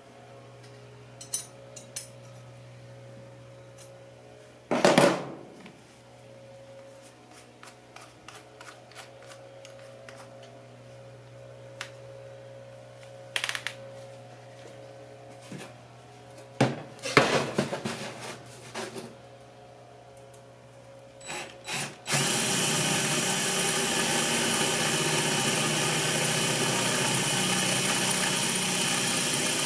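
A few handling knocks and clicks, then about two-thirds of the way in an electric drill starts and runs steadily. It is driving a finish bit through a steel wood-stove pipe to enlarge the pilot hole.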